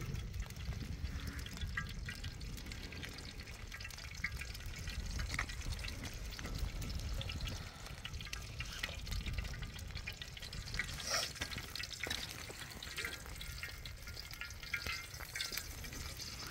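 Wind buffeting the microphone, with a steady scatter of small crackles and ticks from an open wood fire burning under a kettle and pan.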